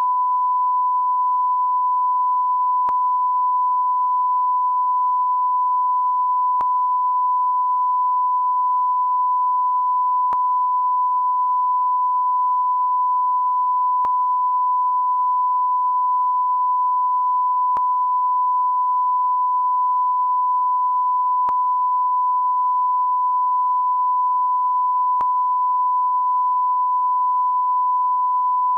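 Continuous 1 kHz beep tone, the steady 'program interrupted' TV test tone, held at one pitch and level without a break. Faint clicks come about every four seconds.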